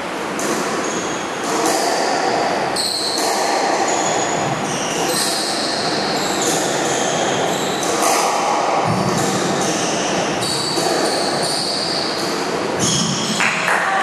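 Squash rally: the ball cracks off rackets and walls in a string of sharp hits, while the players' shoes squeak repeatedly in short, high chirps on the wooden court floor.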